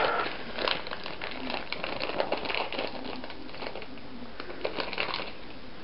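Crinkling and rustling of a foil blind-bag packet being torn open and handled, heard as a run of small, irregular crackles.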